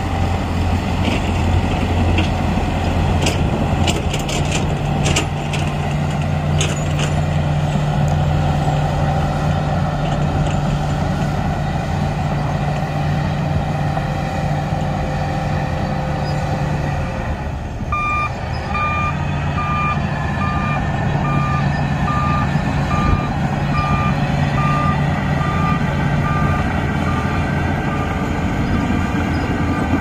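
Shantui crawler bulldozer's diesel engine running steadily as it works, with a few sharp clanks in the first several seconds. Just over halfway through, its backup alarm starts beeping in a regular pattern, the signal that the dozer is reversing.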